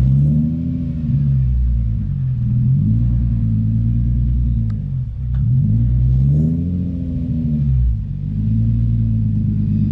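Nissan 350Z's 3.5-litre V6 running with a deep exhaust note, its revs rising and falling twice and settling back between. The deeper note comes from exhaust parts the car no longer has.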